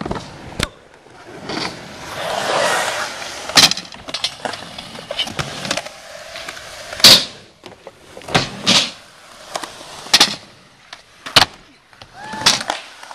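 Skateboard rolling on concrete, with a string of sharp clacks of the board and wheels hitting the ground, about eight over the stretch. The loudest clack comes about halfway through.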